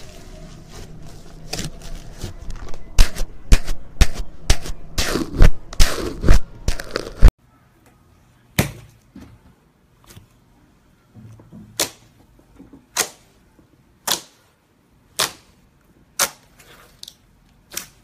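Slime being squeezed and poked by hand, its trapped air pockets popping with sharp clicks. There is a fast run of loud pops as a glossy blue slime is squeezed, then a sudden cut to single pops about once a second as fingers press into a shiny gold slime.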